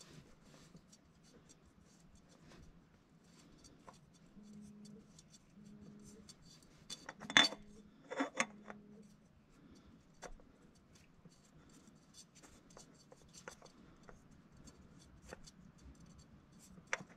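Faint scrapes and small clicks of a new spin-on oil filter being worked by hand onto the threaded filter mount of a 1.5L EcoBoost engine, with a sharper knock about seven seconds in and another a moment later.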